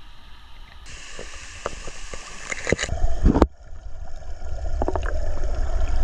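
Running water gurgling and splashing over a low rumble, with scattered clicks; the sound changes abruptly a few times.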